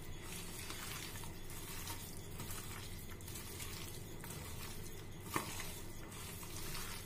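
Hands squishing and turning spice-coated raw chicken pieces in a steel bowl: a soft, wet mixing sound, with one light click about five seconds in.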